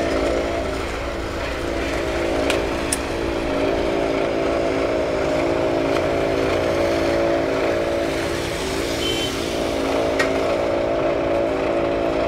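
An engine running steadily with an even hum, with a few light clicks about two and a half seconds, three seconds and ten seconds in.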